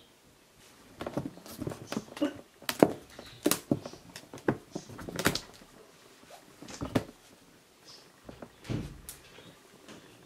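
Irregular scratching, tapping and knocking on a hollow plastic box, from a kitten's paws and claws on its rim and a hamster moving about inside. The knocks come thickest from about a second in to about seven seconds, with a few more near the end.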